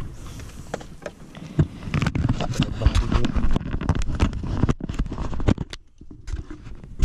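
Irregular knocks, clicks and scrapes on a small wooden fishing boat, over a low rumble of wind on the microphone.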